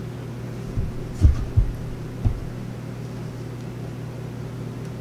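Steady low hum with four dull, low thumps between about one and two and a half seconds in.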